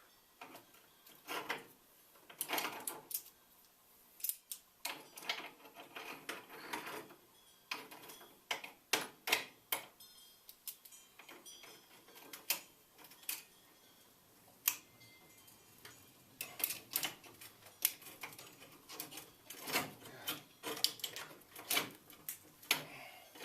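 Metal parts and tools clinking and tapping irregularly as they are handled, a sharp click every second or so, while homemade spring compressor pieces are worked on by hand.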